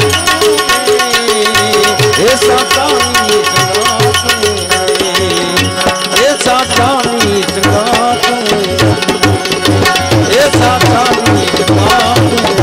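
Instrumental passage of Gujarati santvani devotional music: tabla keeping a steady beat under a melodic line that slides up and down in pitch, over a held drone.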